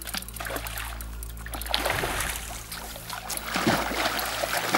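Music playing under the opening titles.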